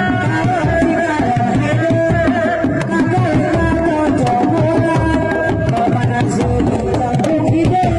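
Sundanese reak dogdog drums struck by hand in a continuous interlocking beat, with a held melody line sounding over the drumming.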